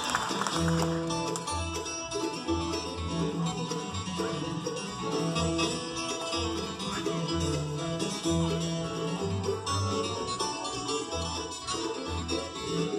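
Live bluegrass band playing: banjo, mandolin, acoustic guitars and resonator guitar picking over an upright bass that keeps a steady beat of about two notes a second.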